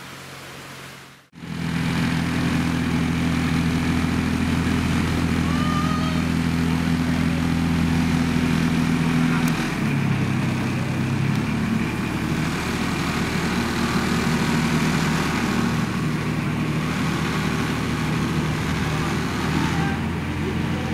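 The engine of a miniature ride-on locomotive running steadily as it hauls a passenger train, after a short hiss at the start. Its note drops about ten seconds in.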